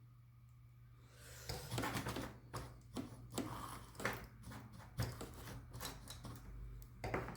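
Irregular clicks, taps and short scrapes of small tools and parts being handled on a workbench, starting about a second in, over a steady low hum.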